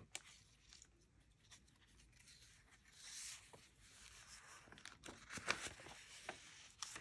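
Faint rustle of paper pages in a handmade junk journal being turned and handled, with a few light clicks about five seconds in.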